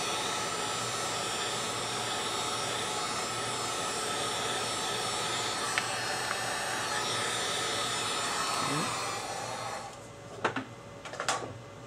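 Handheld hot-air blower running steadily, rewarming a steel revolver side plate before more bluing solution is applied. It switches off about ten seconds in, followed by a few light knocks.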